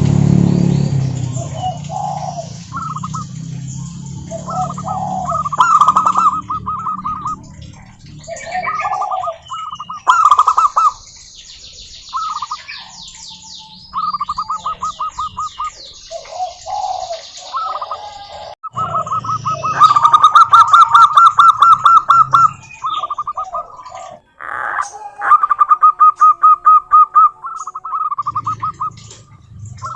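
Zebra doves (perkutut) cooing: several birds giving runs of rapid staccato cooing notes, phrase after phrase, with lower single coos between them. A higher, fast trilling from another small bird joins about a third of the way in.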